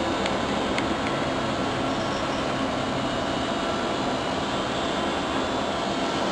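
Electric fan running steadily, powered from output 4 of an electronic control board: an even rush of air with a faint steady hum.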